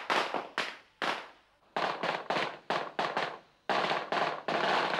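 Chinese firecrackers going off in quick, irregular bangs, with a short lull about a second in and a dense, almost unbroken rattle near the end.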